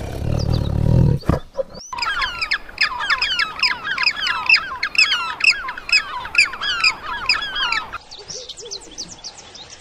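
A low tiger growl fades out about a second in. After a short gap comes a dense chorus of many birds chirping at once for about six seconds, which then drops away to quieter sound near the end.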